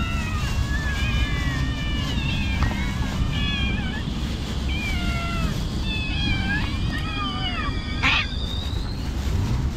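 Several cats meowing over one another in short, high calls, with one sharp sudden sound about eight seconds in. A steady low rumble runs underneath.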